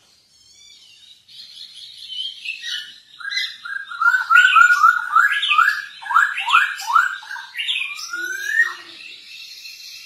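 Caged poksay Hongkong laughingthrush singing in full voice with varied whistled phrases. In the middle it runs quickly through repeated notes, about four a second, each sweeping up and down. Near the end it gives one long rising whistle.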